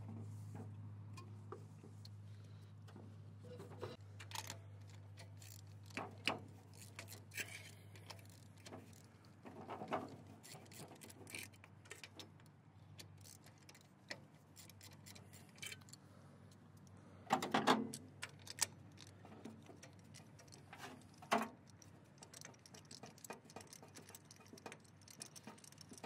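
Faint, uneven clicking, clinking and knocking of hand tools on metal as spark plugs and plug wires are taken off a small engine, with a louder bunch of knocks about two-thirds of the way through. A low hum fades away over the first few seconds.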